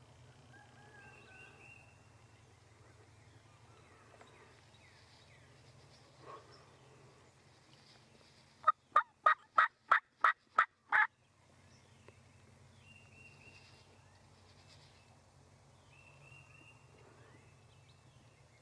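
Wild turkey gobbler gobbling once: a loud, rapid run of about eight notes lasting a couple of seconds, a little before the middle.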